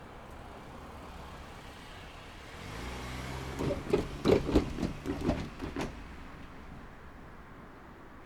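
A road vehicle driving over the railway level crossing: its engine comes closer, then a quick run of about ten thumps as its wheels cross the rails, between about three and a half and six seconds in.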